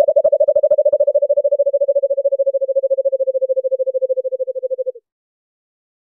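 White-eared brown dove (alimokon) song: a fast run of short low cooing notes, about a dozen a second, sinking slightly in pitch and fading away until it stops about five seconds in.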